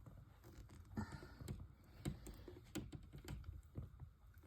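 Faint, irregular small clicks and scraping as cutters nibble at a coax cable's outer plastic jacket, trimming it back to expose the metal braid.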